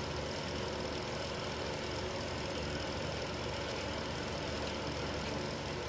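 Steady hum and hiss with no knocks or changes, as a small induction heater board runs with a thick piece of iron in its work coil.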